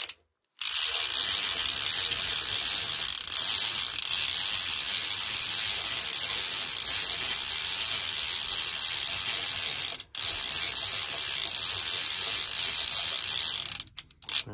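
Okuma Magda Pro 20 DXT line-counter trolling reel being cranked steadily as weighted steel line is wound onto the spool, its gears and counter whirring. The cranking pauses briefly just after the start and again about ten seconds in, and stops shortly before the end.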